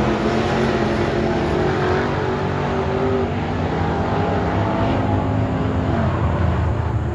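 Dirt late model race cars' V8 engines running around a dirt oval, several engines heard at once, steady with small shifts in pitch.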